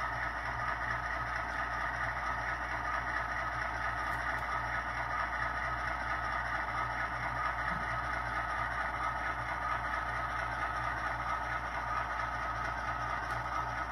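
ESU LokSound sound decoder playing an EMD SW1 diesel switcher's engine sound through the model locomotive's small speaker, running steadily at a low, unchanging throttle setting.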